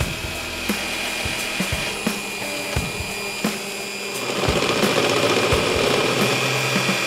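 Bosch PBD 40 drill press running, its twist bit cutting into a metal block. The cutting gets louder and grittier from about four seconds in as the bit bites and throws chips.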